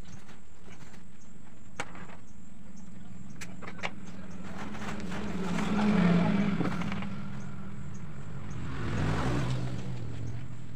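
Two motor vehicles passing by, each swelling up and fading away over a couple of seconds, about six and about nine seconds in, over a steady low background hum, with a few light clicks early on.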